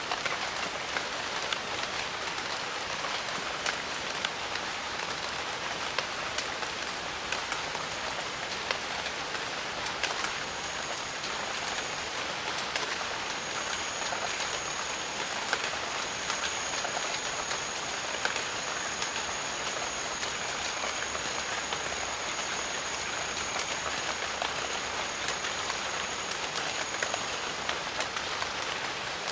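Steady rain falling on jungle foliage: an even hiss with individual drops spattering close by. About a third of the way in, a thin, high, steady tone joins the rain and holds until near the end.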